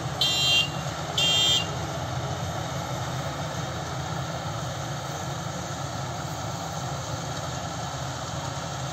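A 102 hp World Star combine harvester running steadily while cutting paddy, a continuous mechanical drone. Near the start two loud electronic beeps sound about a second apart, then the drone goes on alone.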